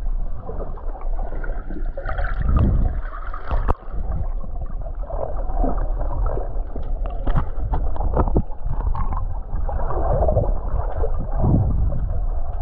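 Muffled water gurgling and sloshing over a steady deep rumble, with scattered sharp clicks and knocks.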